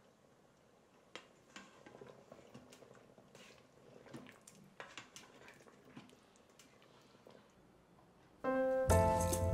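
Faint, scattered soft clicks and pops, then background music with piano comes in loudly near the end.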